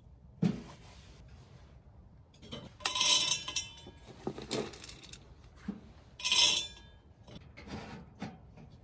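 Stainless-steel stove fittings clinking and ringing as they are handled on top of a small pellet stove. There are a few separate metallic knocks, and the loudest clinks come about three seconds in and again after six.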